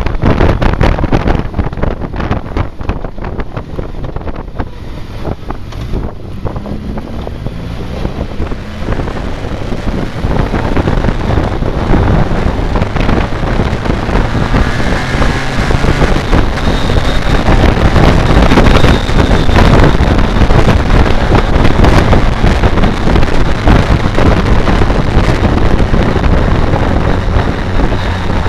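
Wind rushing and buffeting over the microphone of a riding motorcycle, with the BMW K1200R Sport's inline-four engine running underneath at a steady cruise. The wind grows louder over the middle of the stretch as speed builds.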